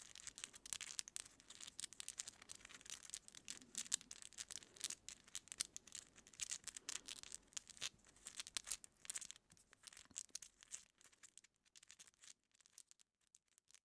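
Long acrylic fingernails picking and parting through hair at the scalp, close to the microphone: a dense run of soft, crisp scratches and crackles that thins out to a few scattered ticks about eleven seconds in.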